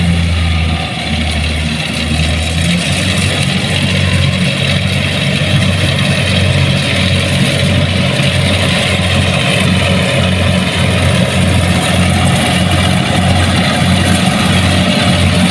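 Kubota DC70 Plus rice combine harvester running under working load, a steady diesel hum with a regular low throb and a hiss of machinery over it.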